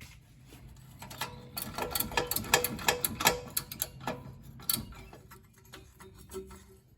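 Ratchet wrench clicking rapidly and unevenly on exhaust mid pipe bolts, from about a second in until near the five-second mark.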